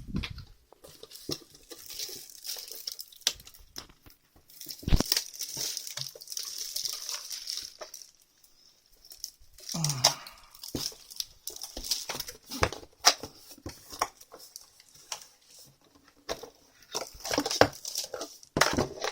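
Plastic packaging crinkling and rustling as it is handled, with scattered clicks and a single sharp thump about five seconds in.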